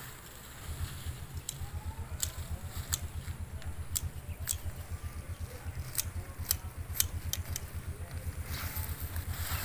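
A small engine starts running about half a second in, with a rapid, even low putter. Over it come a dozen or so sharp clicks of garden scissors opening and snipping, several in quick succession near the middle.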